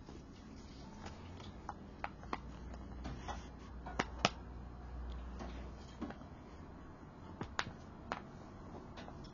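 A square of calendar paper being folded and creased by hand into origami: scattered crisp crackles and taps of the paper, the loudest pair about four seconds in.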